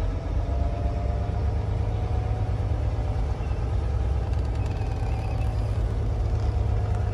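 Volvo VNL semi truck's diesel engine running at low speed as the rig pulls slowly away, heard from inside the cab as a steady low rumble with a faint steady whine over it.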